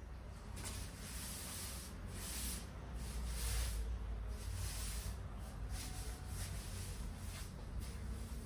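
Straw broom sweeping a smooth hard floor: dry swishing strokes, about two a second, over a low steady rumble.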